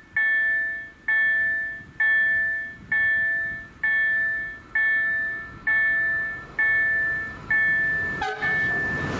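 Level-crossing warning bells (EDE-1 electronic acoustic signals) ringing with evenly spaced strikes, a little under one a second, each ringing and dying away; near the end the strikes stop and a single ringing tone is held. They sound while the barriers are down for an approaching train.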